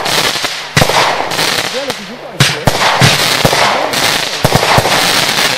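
Lesli 'Böse Sekretärin' 20 mm, 19-shot fireworks cake firing: a rapid series of sharp bangs from its shots bursting in the air, over a dense crackling from the glittering stars.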